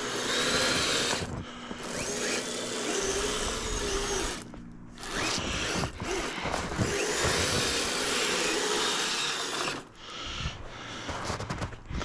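Kyosho Blizzard RC snowcat's electric motor and gears whining as it drives its tracks up a snow bank, the pitch wavering with the throttle. The whine stops briefly about four and a half seconds in and again near ten seconds.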